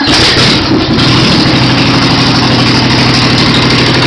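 Straight-piped lawn mower engine, with its muffler replaced by two open pipes, running just after starting. It is super loud, a rough exhaust note that steadies about a second in.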